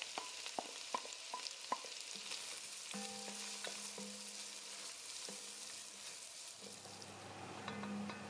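Chopped onions frying gently in melted butter in an enamelled pot, giving a soft, steady sizzle. A wooden spatula stirring the onions clicks against the pot several times in the first couple of seconds.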